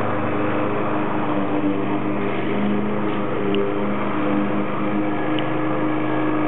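Homemade radio-controlled lawnmower running steadily as it drives across the lawn mowing grass, a continuous mechanical drone whose pitch drifts slightly.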